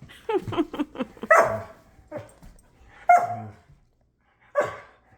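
Dog barking in play: a quick run of short yips, then three separate barks about a second and a half apart.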